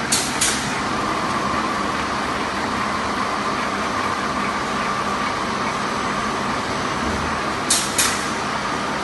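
Fully automatic dhoop-batti making machine running with a steady mechanical hum and a faint whine. Twice, at the start and again near the end, a pair of short sharp hissing clicks about a third of a second apart.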